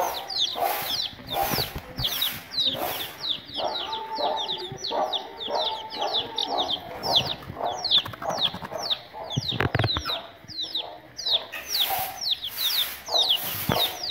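Young chicken chicks peeping steadily in a stream of short, high, falling chirps, about three or four a second, as they are picked up by hand, with a few handling knocks and rustles.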